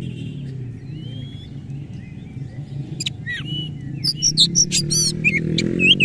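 Caged oriental magpie-robin singing. Faint notes at first, then from about halfway in a fast, loud string of sharp whistles, rising and falling sweeps and clicks, its song full of mimicked phrases (isian). A low steady hum runs underneath.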